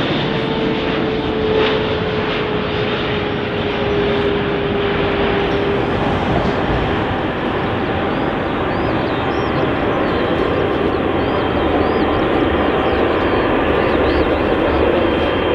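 Boeing 777 jet engines running loud and steady as the airliner moves past, with a single tone that sinks slightly in pitch over the first several seconds.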